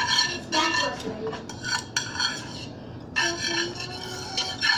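A utensil scraping and clinking against a frying pan in a run of short strokes, with a longer scrape about three seconds in, as melted butter is spread around the pan.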